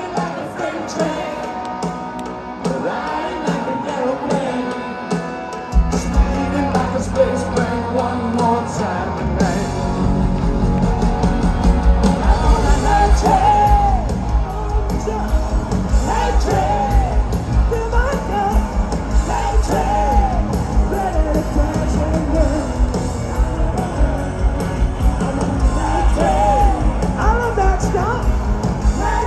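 Live hard-rock band with a male lead singer, recorded from the audience at a large concert. Guitars play a build-up, the bass comes in about six seconds in and the full band with drums kicks in a few seconds later, with the singer's voice sliding high over it.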